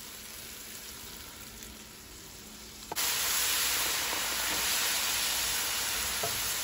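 Water sizzling in a hot pan of butter-toasted vermicelli noodles, a steady hiss that turns suddenly much louder about three seconds in as the spatula stirs the water through the noodles.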